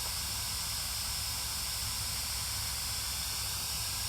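Steady, unchanging hiss with a low hum underneath and no distinct sounds in it.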